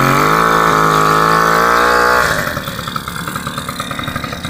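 Suzuki LT50 quad's small two-stroke engine revving up and held at high revs for about two seconds, then dropping back to lower revs.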